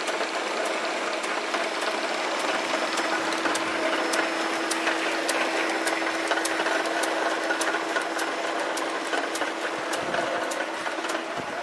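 AV Carroll metal lathe running under power, its electric motor, belt drive and gearbox whirring with a steady hum and a regular light ticking.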